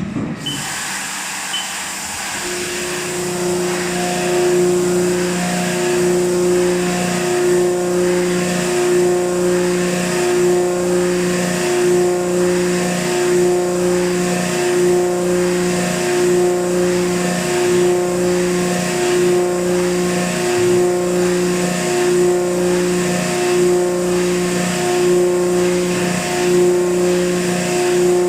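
HAAS VF-8/40 vertical CNC machining center milling metal: a steady pitched hum from the spindle and cutter with a hiss above it. The hum comes in a couple of seconds in and pulses at an even rhythm as the tool cuts.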